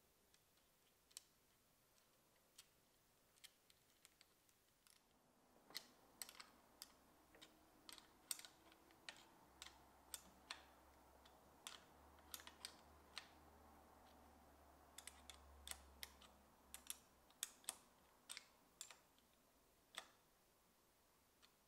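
Light, scattered metallic clicks and taps of a small open-end wrench working the nut and bolts of a handlebar phone-mount clamp as it is tightened. A few at first, then coming thick and fast from about six seconds in.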